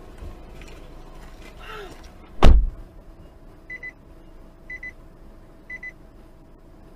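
A single heavy thump, like a car door shutting, about two and a half seconds in. It is followed by a car's electronic warning chime, a short double beep sounding three times about a second apart.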